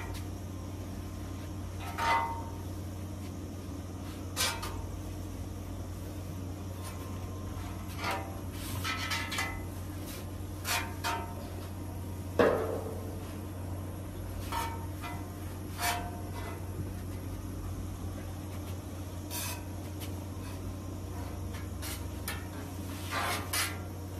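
Scattered light knocks and clinks, about a dozen, from hand tools and the seasoning jar being handled on and around a hot steel griddle top while a coat of seasoning is wiped on. The strongest knock comes about halfway through. Under them runs a steady low hum.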